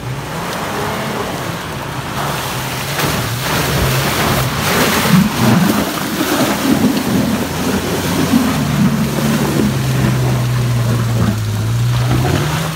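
An off-road 4x4's engine runs hard under load as the vehicle churns through mud and water, with splashing and tyre noise over it. The engine note holds steady, then rises near the end.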